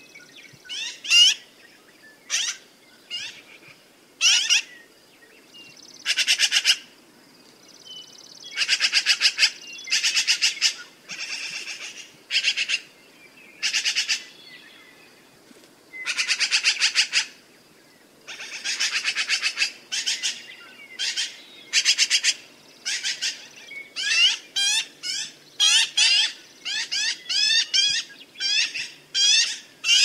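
Black-billed magpie (American magpie, Pica hudsonia) calling in bouts of chatter. Each bout is a rapid run of notes, some about a second long, and the calls come shorter and closer together near the end.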